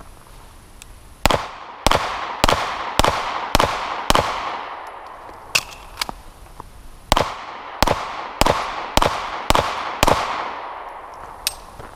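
Beretta 92F 9mm pistol fired in rapid fire: twelve shots in two strings of six, about half a second apart, with a pause of about three seconds between the strings. Each shot is followed by a fading echo.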